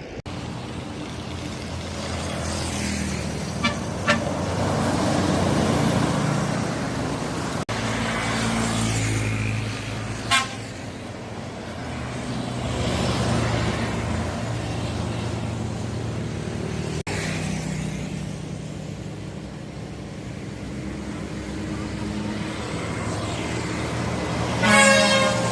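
Road traffic with large vehicles passing and their engines running, the hum swelling and fading as each goes by. Two short horn beeps come about four seconds in and another brief toot about ten seconds in. A louder horn blast near the end is the kind of horn greeting bus drivers give to bus fans at the roadside.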